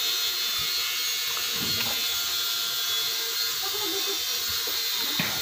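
A few faint clicks and knocks of metal parts being handled as a motorcycle starter motor's housing and end cover are fitted back together, over a steady background hiss and hum.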